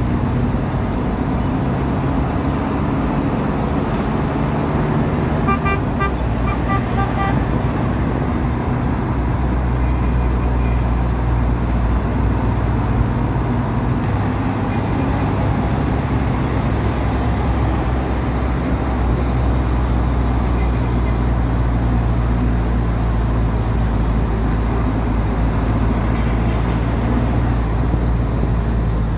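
Steady road traffic and vehicle engine rumble heard from a moving vehicle. About six seconds in, a vehicle horn gives a quick string of short beeps.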